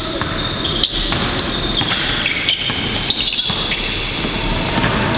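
Basketball bouncing on a hardwood gym floor during a pickup game, with sharp thuds, short high sneaker squeaks and the echo of a large hall.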